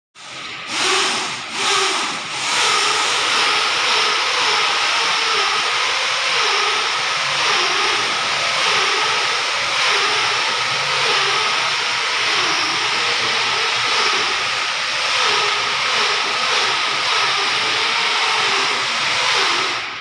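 Loud, steady industrial machinery noise: an even hissing din with a faint steady whine and a wavering low hum. It breaks off briefly a few times in the first two seconds and drops sharply at the end.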